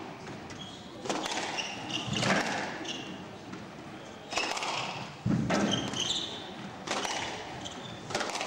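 Squash rally: the ball is struck by rackets and hits the court walls in sharp thuds about every second, with short squeaks of shoes on the wooden court floor between the shots.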